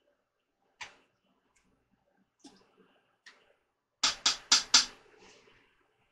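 A plastic ladle stirring vegetables in a slow cooker's crock, with a few faint knocks, then four sharp knocks in quick succession about four seconds in as the ladle is knocked against the crock.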